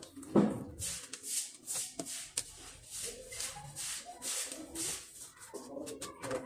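Rustling and rubbing of things handled close to the microphone, in short irregular swishes, with one thump about half a second in.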